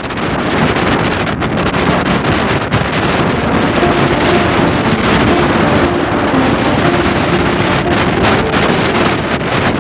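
Wind buffeting the microphone: a loud, gusty rushing noise that starts suddenly.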